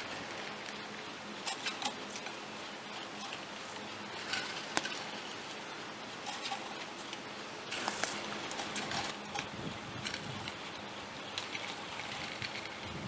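Surface ski tow running at its return bullwheel station: scattered light metallic clicks and rattles as the haul rope and a passing hanger go round the wheel, with a louder clatter about eight seconds in.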